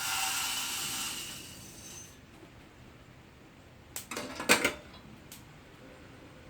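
Coffee beans and metal roasting gear being handled: a sudden rustling hiss that fades over about two seconds, then a short burst of metallic clatter a little over four seconds in.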